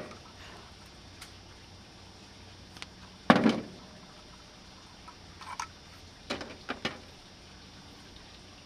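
Hands working electrical wire while splicing on longer leads: a few small clicks and rustles over a low background, with one sudden loud thump about three seconds in.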